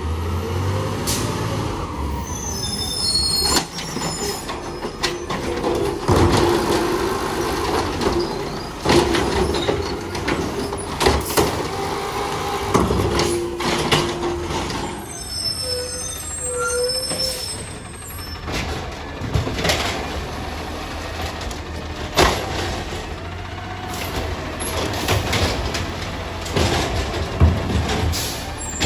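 Automated side-loader garbage trucks working curbside bins: diesel engines running, with a steady whine and repeated knocks and bangs as the cans are handled.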